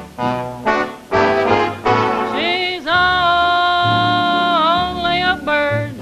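Film-musical orchestra accompaniment of a vintage popular song: a few short punchy chords, then one long held note from about two seconds in until shortly before the end.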